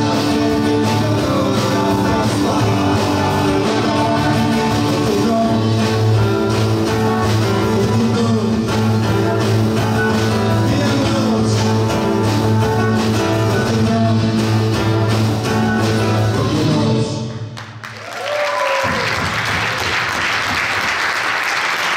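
Live band of acoustic guitars, bass guitar, drum kit and keyboard playing a song to its final chord, which dies away about 17 seconds in. Audience applause follows and carries on to the end.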